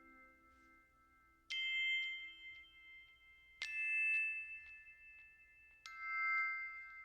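Three high, bell-like metallic notes struck about two seconds apart. Each one rings on and slowly fades.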